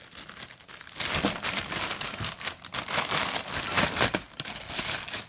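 Packing materials in a monitor box rustling and crinkling as a part is lifted out. Quiet for about the first second, then continuous crinkling with many small crackles.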